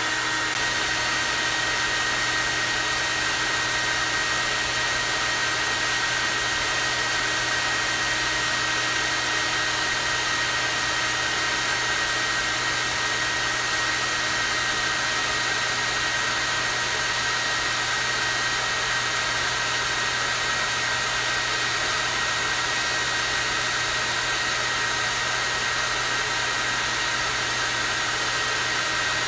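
Hair dryer running steadily on its high, strong-airflow setting: an even rush of air with a steady high whine from the motor and a low hum underneath.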